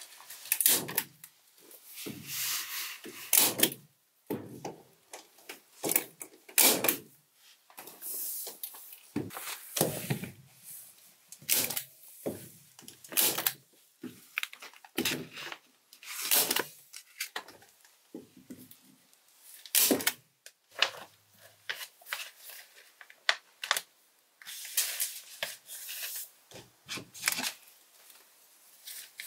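Hand staple gun stapling polyethylene vapor barrier to wood wall framing: a string of sharp clacks at irregular intervals, with the plastic sheet crinkling as it is pulled and smoothed between shots.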